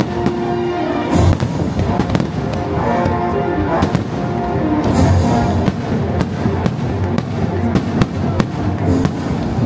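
Fireworks show: rapid firework bursts cracking and banging over a music soundtrack, with heavier booms about a second in and about five seconds in.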